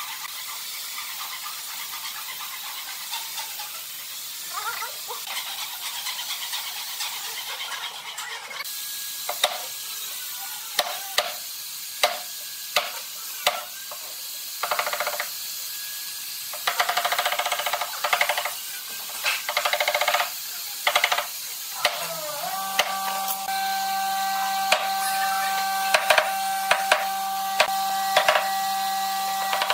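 A steady hiss, then a run of sharp knocks about a second apart, then an electric motor spinning up about two-thirds of the way through and running with a steady hum while the knocks go on.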